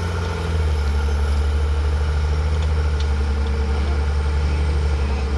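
Heavy construction machine's diesel engine running with a deep, steady drone that grows louder about half a second in.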